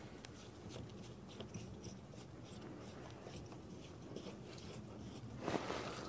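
Faint small clicks and scrapes of a hose fitting being handled as a garden hose is connected, with a louder rustle about five and a half seconds in.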